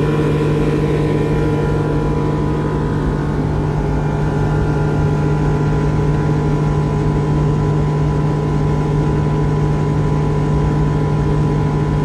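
Suzuki outboard engine on a fast bass boat running at full throttle, a steady drone that holds one pitch, with rough wind noise on the microphone underneath.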